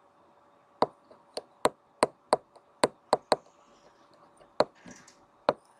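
A pen tip tapping and clicking on a writing tablet while a word is handwritten: about ten sharp clicks at uneven intervals.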